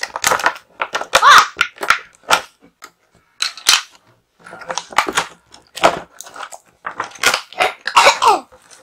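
Stiff plastic toy packaging being cut and pried open: a rapid, irregular run of cracks, crunches and creaky squeaks.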